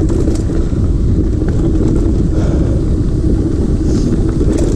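Steady rumble of a mountain bike rolling over a dirt trail, picked up by a camera worn by the rider, with wind noise on the microphone and a few faint ticks.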